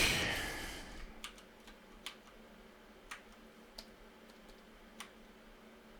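Faint, scattered clicks of a computer mouse and keyboard, about one a second, after a short fading hiss at the start.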